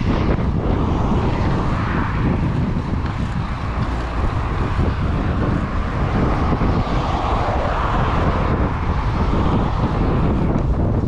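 Wind buffeting the microphone of a rider-mounted camera while cycling, a steady, deep rumble that covers most other sound.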